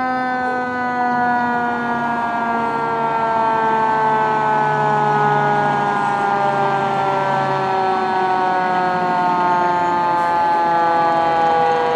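Fire engine siren sounding continuously, its pitch falling slowly and steadily, with the truck's engine rumbling underneath.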